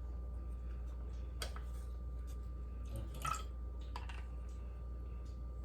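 A few faint clicks and taps of kitchen utensils, such as a measuring spoon against a bowl, as sauce ingredients are measured out, over a low steady hum.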